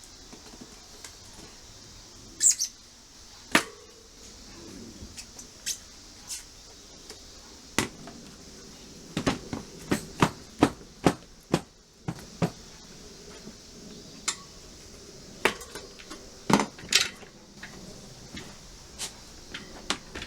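Metal hand tools clinking and knocking against an off-road motorcycle's front wheel rim while the tire is being fitted. The clicks are sharp and scattered, with a quick run of them a little before the middle.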